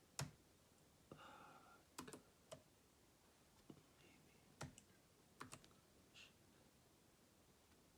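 Faint, scattered clicks of a computer mouse and keyboard, about seven sharp clicks spread over several seconds, some in quick pairs.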